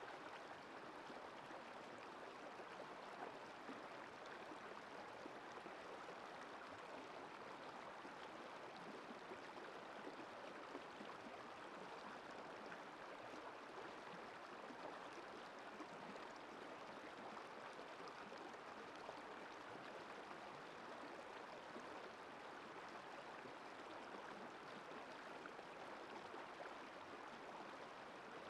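Shallow rocky river running over and around boulders: a faint, steady rush of water.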